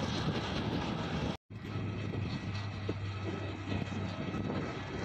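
Steady outdoor noise, broken by a brief dropout about a second and a half in, after which a twin-engine turboprop airliner passing overhead drones steadily with a low hum.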